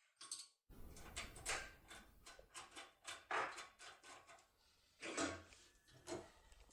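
Faint metallic clicks and scrapes of a foil impression tool being worked in an AGB Genio lock cylinder, with a few louder clicks among them.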